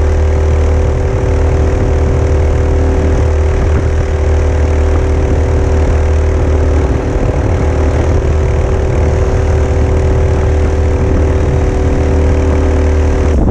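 Mokai motorized kayak's small gasoline engine running steadily through a prototype muffler, a constant drone with no change in speed.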